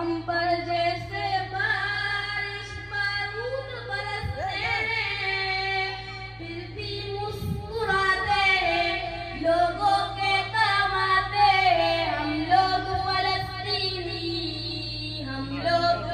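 A boy's high voice singing a slow melody unaccompanied through a public-address system, in long held phrases that glide up and down, over a steady low hum.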